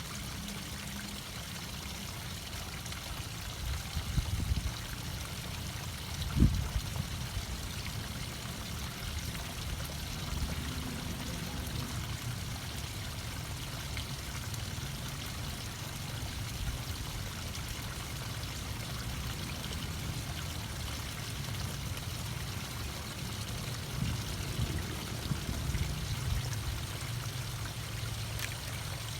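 Steady rush of flowing river water, with a low rumble beneath it. A few dull thumps stand out, the loudest about six seconds in.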